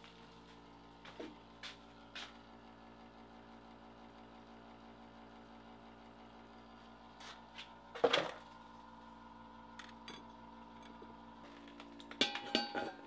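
The steel lid of a coal-briquette stove clanking and ringing as it is handled, several strikes near the end, over a faint steady hum; a single sharper knock about eight seconds in.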